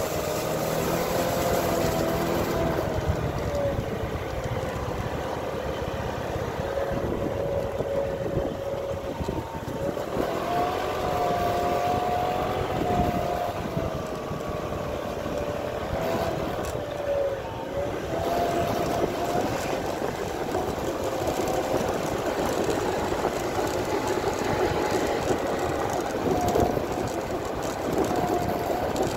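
A Thai kite hummer (sanu), a bamboo bow with a taut strip, humming in the wind of a moving motor scooter: a wavering hum that keeps rising and falling in pitch and fades briefly about two-thirds of the way through, over the scooter's engine and wind noise. It hums only patchily because the wind is not strong enough.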